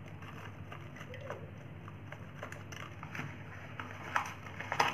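Quiet steady low hum with a few light clicks and taps, the two clearest near the end.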